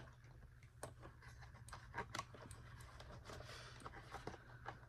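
Faint, scattered clicks and taps of the vacuum's plastic housing parts and wiring being handled and fitted together during reassembly, the sharpest pair about two seconds in, over a low steady hum.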